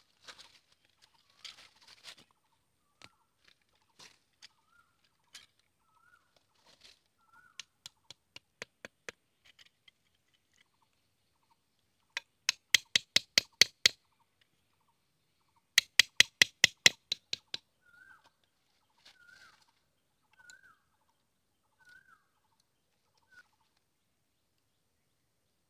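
A curved machete blade knocking sharply against a thin bamboo stick, in two quick runs of about eight strikes each, with lighter scattered taps and clicks around them. A bird calls a short note over and over, about once a second.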